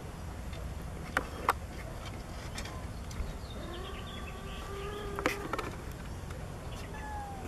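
A cat's low, drawn-out warning yowl with a wavering pitch, lasting over a second about four seconds in: one cat objecting to another coming too close. A few sharp clicks are heard, two about a second in and a louder one just after the yowl.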